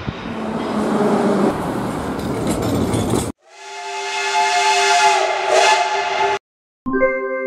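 Jet aircraft engine noise on a runway for about three seconds, cut off abruptly. A steam locomotive's whistle then swells in and blows a steady chord of several notes for about three seconds. After a brief silence, music starts near the end.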